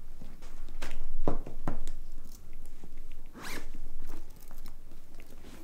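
A canvas bag with leather straps and metal buckles being handled and opened: several short rasps of a zip being pulled, with the canvas rustling.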